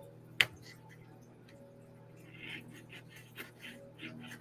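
Kitchen knife slicing potatoes into fries on a cutting board: one sharp knock of the blade on the board about half a second in, then a few faint cuts and ticks over a low steady hum.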